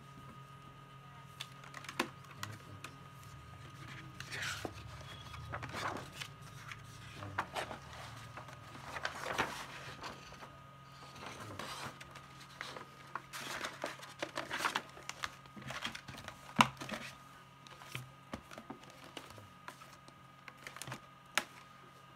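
Paper pages of a children's activity book being flipped and a large fold-out sheet opened out: irregular rustles and swishes of paper with a few sharp taps, over a faint steady hum.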